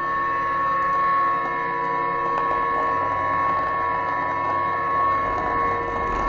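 Background music: a steady electronic drone of several held tones with a rough, rustling texture.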